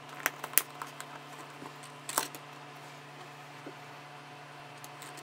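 Small hard-plastic clicks and taps as 3D-printed stator vanes are handled and fitted into a printed compressor casing: two sharp clicks close together near the start and another about two seconds in, with fainter ticks after, over a steady low hum.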